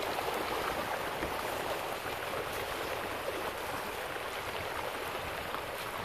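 Steady pattering and splashing of a large school of ladyfish breaking the surface of the bay, like rain on water, with many small splashes scattered through it.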